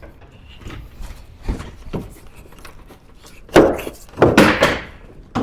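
Two short knocks, then two longer scraping, rubbing noises about three and a half and four and a half seconds in.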